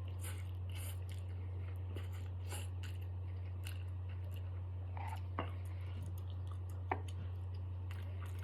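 A person chewing mouthfuls of spicy instant ramen noodles with wet mouth clicks, and a couple of sharper clicks about five and seven seconds in. A steady low hum runs underneath.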